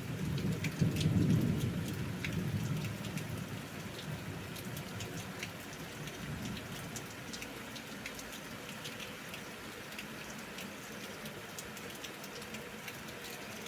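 Thunder rumbling low, peaking about a second in and dying away over the next few seconds, then steady rain with individual raindrops ticking sharply on a surface.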